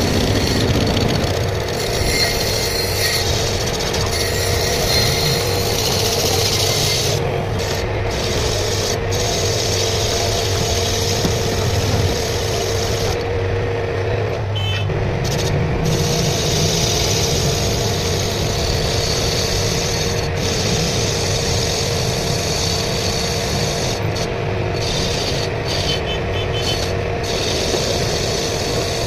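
Metal-turning lathe running with a cutting tool turning a bearing bush: a steady hum from the motor and spindle under the rasping scrape of the tool on the spinning metal. The high hiss of the cut drops out for moments a few times.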